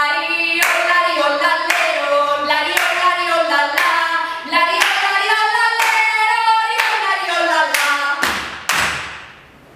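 A man and a woman singing a song together while clapping their hands in time, about two claps a second. The singing ends near the end on two last claps.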